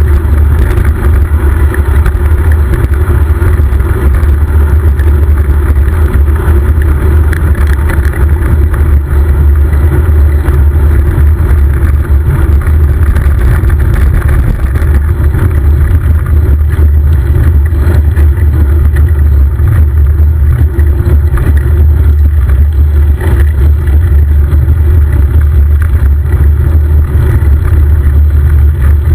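Steady, loud wind rumble on the microphone of a bicycle-mounted camera while riding.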